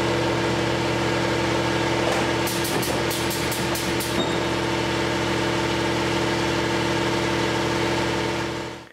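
A shop machine's electric motor running with a steady, constant hum, with a quick run of about eight short sharp ticks around three seconds in.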